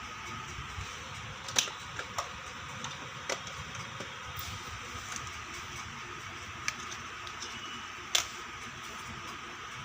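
Small plastic toy kitchen pieces clicking and tapping as they are handled, over a steady hiss. There are a few scattered taps, the loudest about one and a half seconds in and another near the end.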